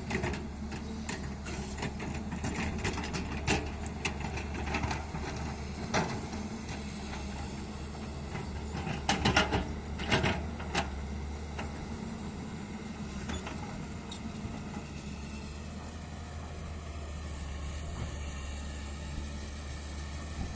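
Hyundai hydraulic excavator's diesel engine running steadily, with intermittent sharp clanks and knocks, a cluster of the loudest about nine to eleven seconds in.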